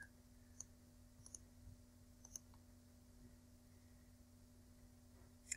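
Near silence with a low steady hum and a few faint computer mouse clicks, mostly in the first half.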